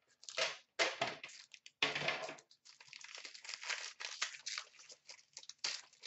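Cardboard box and plastic pack wrapper being torn open and crinkled by hand as a hockey card box is opened. There are a few short rips in the first two seconds, then a run of light crinkling.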